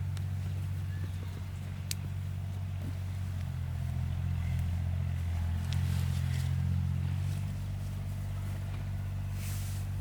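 An engine running steadily with a low hum, with a single sharp click about two seconds in.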